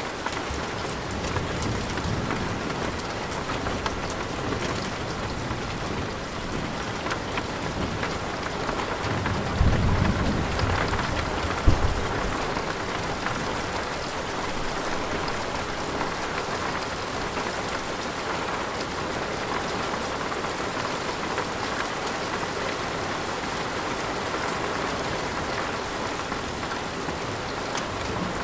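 Steady rain falling, with a roll of thunder about ten seconds in that ends in a sharp crack near twelve seconds.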